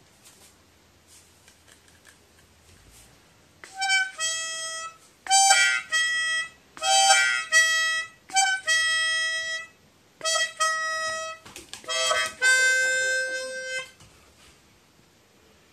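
Harmonica playing a short tune in about six brief phrases of notes, starting about four seconds in; the last note is held for over a second.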